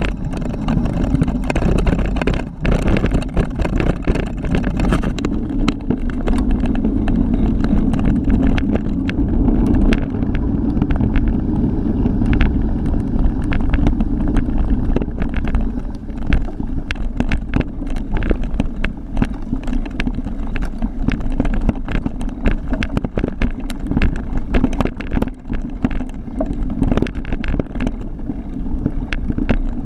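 Kron XC 500 mountain bike descending a rough downhill trail, heard from a mounted GoPro: a steady rumble of wind and tyres with frequent sharp rattles and knocks as the bike jolts over bumps.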